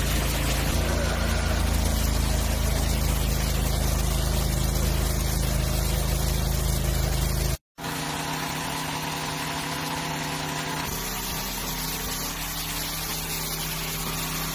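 High-pressure washer running steadily, its pump motor humming under the hiss of the water spray. About halfway through it cuts off abruptly, then a quieter steady hum with spray carries on.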